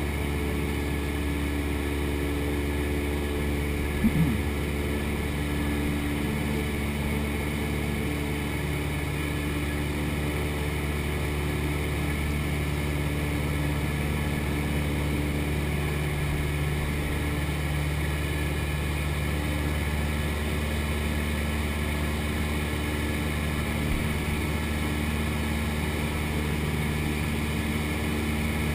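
Cessna 172 light aircraft's piston engine and propeller droning steadily, heard from inside the cabin, with one short thump about four seconds in.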